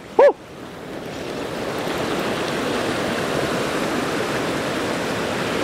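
Ocean surf washing and breaking over shoreline rocks, swelling from about a second in to a steady rush. A short voiced cry sounds right at the start.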